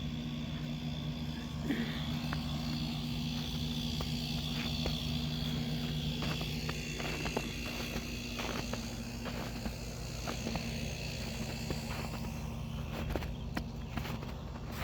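A steady low mechanical hum with a faint high steady tone above it, dotted with scattered small clicks and ticks.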